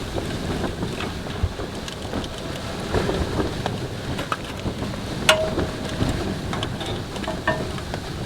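Wood fire burning in a small tent wood stove: a steady rushing noise with sharp crackles and pops scattered throughout.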